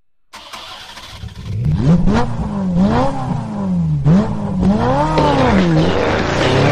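A motor starting abruptly a moment in and revving up and down in quick sweeps about five times, then climbing steadily in pitch near the end.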